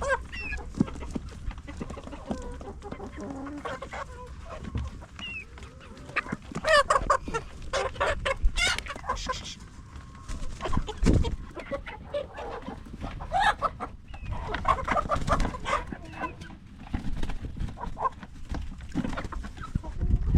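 A flock of chickens clucking and calling continually, many short overlapping calls, with a few dull thumps mixed in.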